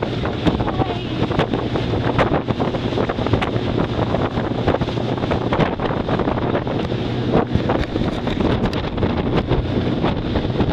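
Wind buffeting the microphone aboard a moving motorboat, over a steady low engine hum, with many short knocks.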